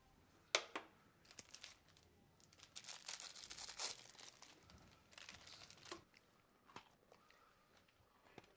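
Cellophane biscuit wrapper being crinkled and torn open: a sharp snap about half a second in, then spurts of crackling, densest around three to four seconds in.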